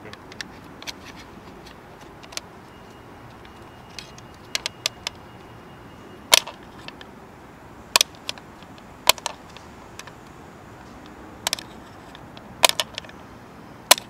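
Sharp, irregular metallic clicks and taps as a screwdriver pries at the spring on a BMW E34 fuel door hinge, about a dozen over the stretch, in small clusters.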